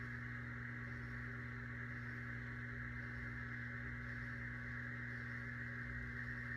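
Electric potter's wheel motor running at slowed speed: a steady low hum with a higher, even whine above it.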